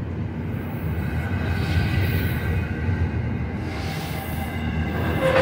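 Double-stack intermodal well cars rolling slowly past on a Union Pacific train: a steady low rumble of wheels on rail, with a faint high whine held over it.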